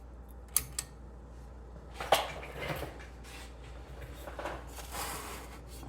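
Pages of an old paper magazine being handled and turned: two small taps, then a sharper knock and soft paper rustling.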